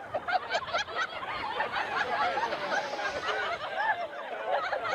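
A chorus of sea lions calling at once: many short, overlapping calls that rise and fall in pitch.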